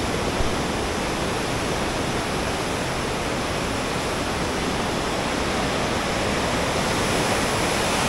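Raging mountain river in spate rushing over rapids: a steady, even rush of water.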